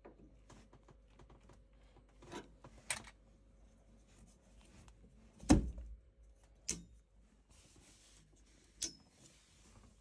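Adjustable spanner and hands working on the copper pipe fittings under a combi boiler: scattered clicks, taps and knocks, the loudest a dull knock about five and a half seconds in.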